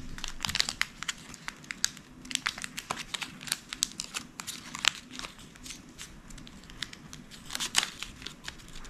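Colored origami paper crinkling and crackling as small hands fold and crease it, in many short, irregular crackles.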